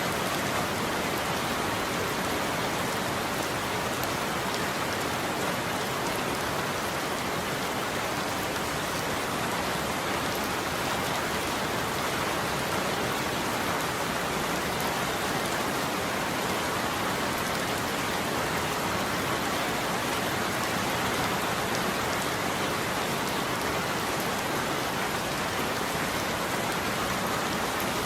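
Steady heavy rain falling on a roof, an even patter with no thunder.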